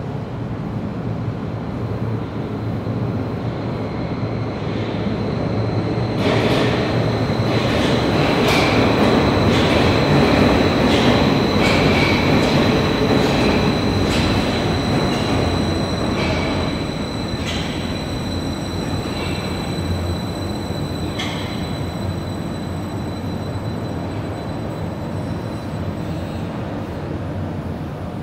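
Stadler metro train pulling into the station. The rumble of its wheels and running gear swells to a peak about ten seconds in, with a steady high whine and scattered sharp clicks over it, then eases off as the train slows.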